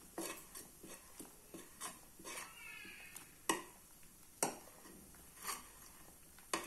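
Steel spoon clinking and scraping against a nonstick kadai as hot milk is stirred, with irregular sharp clinks, the loudest ones a little past the middle and near the end.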